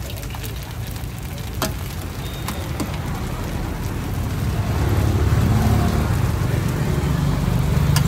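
Oil sizzling steadily under stuffed buns pan-frying in a large shallow pan, with a few sharp clicks. A low rumble grows louder about five seconds in.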